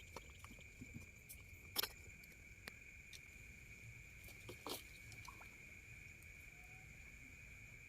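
Faint night ambience: a steady, high-pitched chorus of insects, with scattered small clicks and two sharper knocks, about two seconds and about four and a half seconds in.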